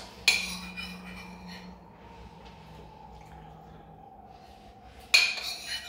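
A kitchen utensil knocking against a dish twice, about five seconds apart, each knock ringing briefly, as ricotta cheese is dropped in little clumps.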